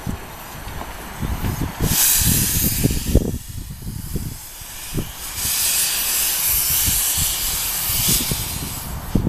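Narrow-gauge steam locomotive hissing loudly as steam blows from its open cylinder drain cocks. The hiss comes in surges, one about two seconds in and a longer one from about halfway until near the end, over an uneven low rumble.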